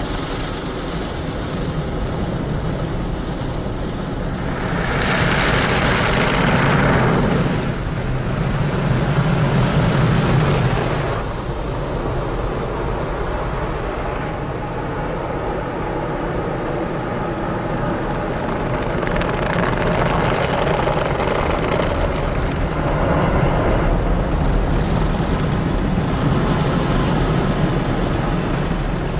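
Automatic car wash machine at work: a steady rush of spraying water and machinery that swells louder twice, first around five seconds in and again from about twenty seconds in.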